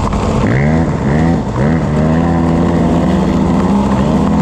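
KTM EXC 250 enduro motorcycle engine under way, revving up and easing off several times in quick succession, then holding a steady pitch for the second half.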